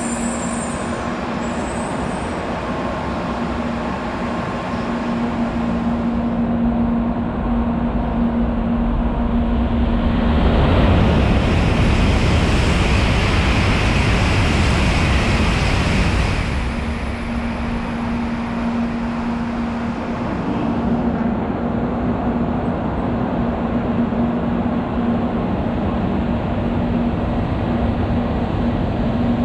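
N700 series Shinkansen train running along the tracks, with a steady low hum. In the middle a louder rushing noise swells up for about six seconds, then dies back to the hum.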